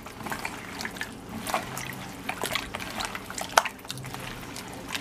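Hands kneading raw meat in a soy sauce, sugar and 7-Up marinade: irregular wet squishing and sloshing with small clicks.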